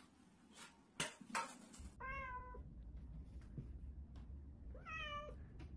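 Two sharp knocks about a second in, then a cat meowing twice, about three seconds apart. The second meow rises at its start.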